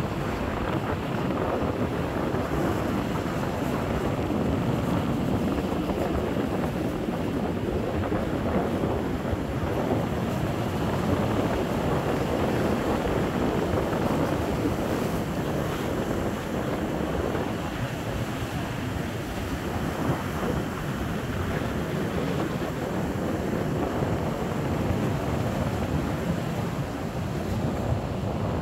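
Rough sea surf breaking and washing over shore rocks in a continuous rush, with strong wind buffeting the microphone.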